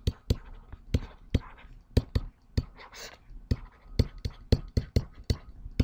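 Stylus tapping and scratching on a tablet screen while handwriting. There are sharp clicks about four times a second, with a soft scrape of the pen tip between some of them.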